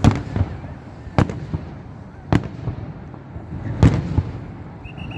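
Aerial fireworks bursting: four loud bangs about a second apart, each followed by smaller pops and echoes, with a brief high tone near the end.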